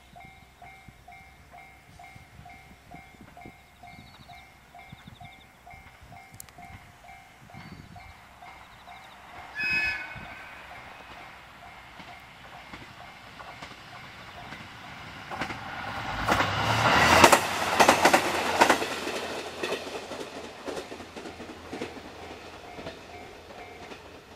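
A Japanese level-crossing alarm dings rapidly and steadily throughout. About ten seconds in a train sounds one short horn blast, and from about fifteen seconds a diesel railcar runs loudly through the crossing with rhythmic wheel clatter over the rail joints, fading off near the end while the alarm keeps ringing.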